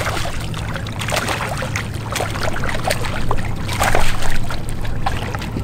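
Water splashing and sloshing as a hooked smallmouth bass thrashes at the surface during the fight, loudest about four seconds in, over a steady low hum.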